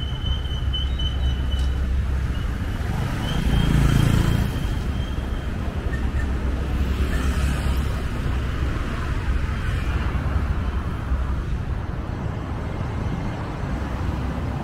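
City street traffic heard from a moving vehicle: a steady low rumble of engines and tyres on the road, swelling louder about four seconds in as a vehicle passes close by.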